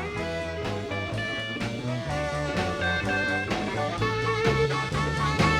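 Live blues band playing an instrumental passage between sung lines: electric guitar fills over a moving bass line and drums.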